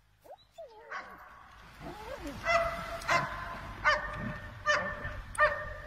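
German Shepherd giving some rising and falling whines, then barking about five times in a steady rhythm, roughly one bark every 0.7 seconds, as it is worked up against a helper in protection training.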